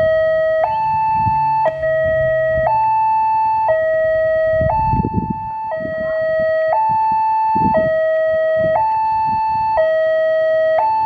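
Railway level-crossing warning alarm sounding: an electronic two-tone signal switching between a lower and a higher tone about once a second, the warning that a train is approaching.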